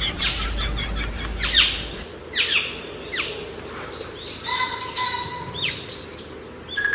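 A series of short, high chirping calls, each sliding down in pitch, about one a second, with a brief steady whistle-like tone about halfway through.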